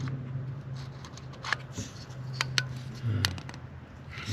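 Several sharp plastic clicks from a brake light switch's plunger being pressed and released by hand, over a steady low hum. The switch is sticking inside, the fault that kept the van from shifting out of park.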